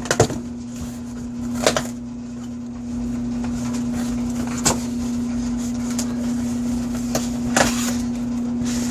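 A mailing package being torn open and handled by hand, with a few short sharp rips and crinkles over a steady hum.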